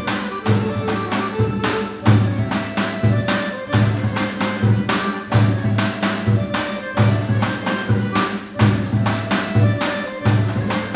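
Bulgarian tapan, a large rope-tensioned two-headed folk drum, played with deep booms and quick lighter strokes in an uneven rhythm. It plays along with a folk melody on a bowed string instrument.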